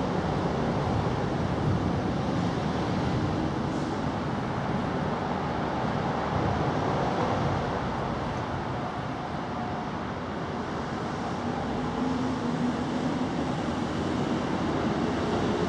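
Steady outdoor background rumble and hiss of distant road traffic, with faint engine tones coming and going.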